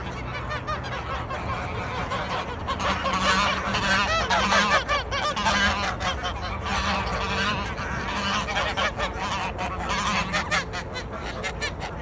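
A flock of domestic geese honking and chattering as they feed, many calls overlapping, with a run of quick clicks in the second half.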